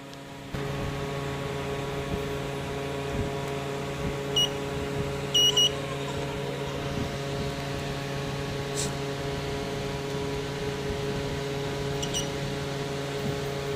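Steady electrical hum with a few short, high beeps: one about four seconds in, a quick cluster a second later, and another near the end.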